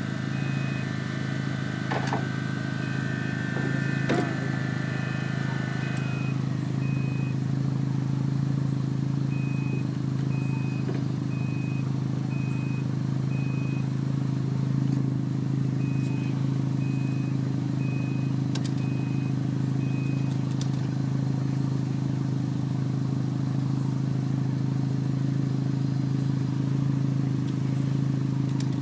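Steady mechanical hum from the Mazda RX-7, with a thin high beep repeating in groups through the first twenty seconds and a few sharp clicks.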